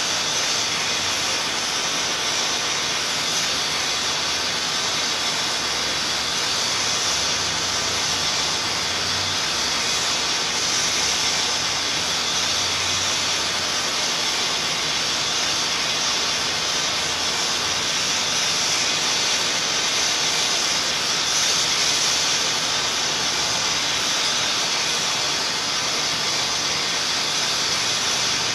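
Loud, steady white-noise hiss, even and unchanging, strongest in the upper range.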